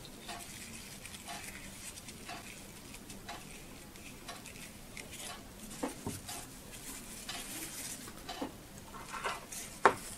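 Light paper-tissue rustling and small clicks of plastic electrode parts being handled and dried by hand, with a sharper click near the end. A faint short tick repeats about once a second underneath.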